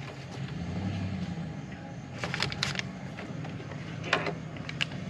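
Paper sheets and a small plastic parts bag rustling and crinkling as they are handled, in short bursts about two seconds in and again around four seconds, over a steady low hum.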